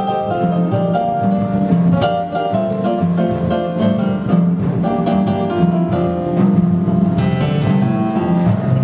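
Instrumental music playing for a dance number: strings and piano over a steady bass line, notes changing in a regular rhythm.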